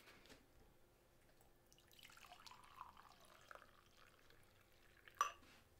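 Tea poured from a jug into a mug: a faint splashing pour lasting about two and a half seconds, starting about two seconds in. A short sharp sound near the end.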